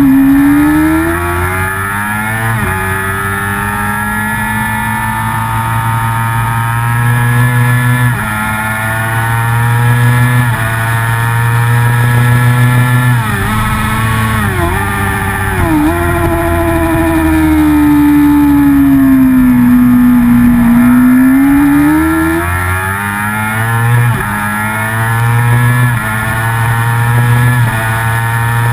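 Racing motorcycle engine at high revs, heard from on the bike. The engine note climbs and drops sharply at each upshift, dips briefly a few times around the middle, then runs high with a slow fall and rise.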